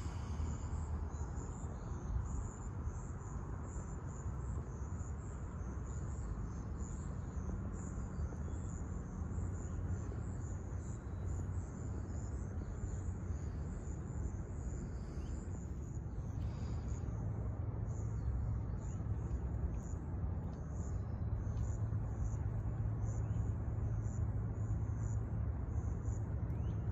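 Insects chirping in a steady, high-pitched pulsing trill, over a low rumble of distant road traffic that grows a little louder past the middle.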